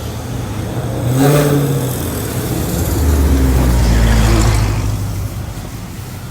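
A car engine revving and driving past, with a deep exhaust rumble that builds about three seconds in and fades near the end.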